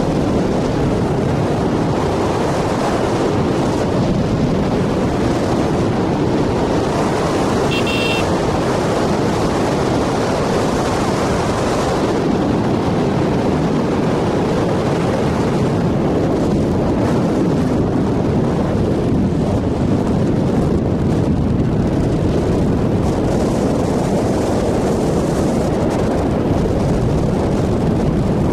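Steady rush of wind on the microphone of a moving motorcycle, with the motorcycle running at road speed underneath.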